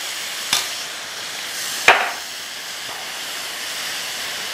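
Chopped fresh tomato and onion sizzling in hot olive oil in a stainless-steel pan, a steady hiss, with two sharp knocks about half a second and two seconds in, the second louder.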